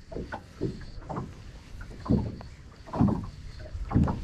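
Small wind-driven waves slapping and lapping against the hull of a drifting fishing boat, in irregular splashy hits every half-second to second over a low steady rumble. The loudest slaps come about two, three and four seconds in.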